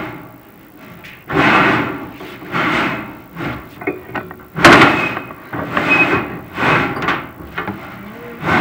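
A chimney inspection camera and its cable being fed down a metal prefab fireplace flue: repeated scraping and rubbing swells, with one sharp knock about four and a half seconds in.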